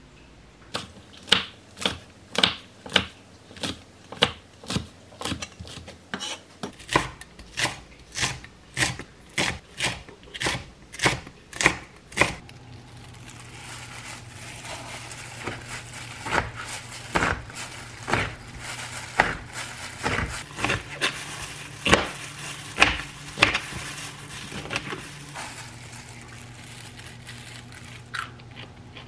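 Knife chopping on a cutting board: sharp strokes in a steady rhythm of about two a second. About twelve seconds in, this gives way to a kitchen knife cutting through napa cabbage kimchi on a plastic cutting board, with irregular strokes over a soft crunch.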